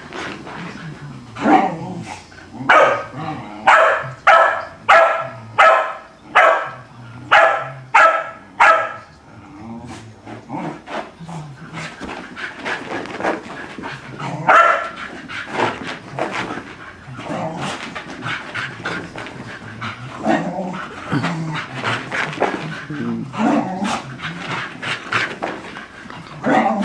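Shetland sheepdog barking at its own reflection in a mirror: a run of about ten loud barks, one every second or less, then a long stretch of quicker, softer barking and yipping with a few louder barks.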